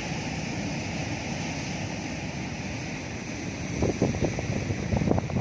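Sea surf and wind, a steady rushing, with gusts buffeting the microphone from about four seconds in.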